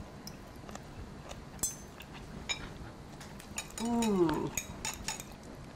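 Forks clinking and scraping on plates as two people eat, a scatter of small, sharp clicks. About four seconds in, one of them gives a short hum that falls in pitch.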